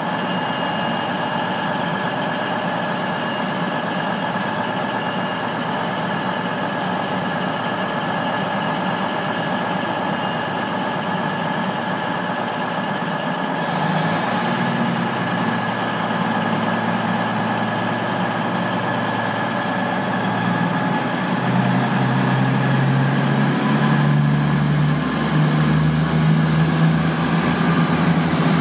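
CrossCountry Voyager diesel multiple unit's underfloor diesel engines idling with a steady whine, then powering up about two-thirds of the way through, their note climbing in steps as the train pulls away.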